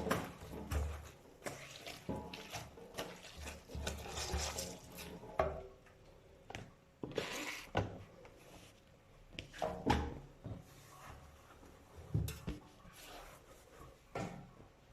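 Dishes being hand-washed at a sink: irregular clatter of crockery and utensils, with short spells of running tap water.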